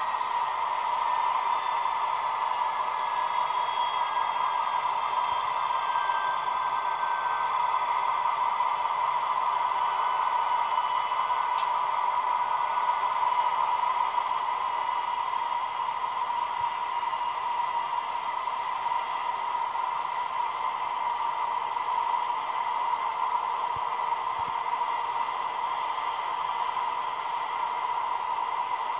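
Sampled diesel sound of a DB class 218 locomotive with an MTU TB11 engine, played at 8-bit, 22 kHz quality through a small H0 model locomotive speaker. It sounds thin and has no bass, with a steady hiss. The engine runs steadily, and a few faint falling tones in the first several seconds suggest it is winding down through the power notches.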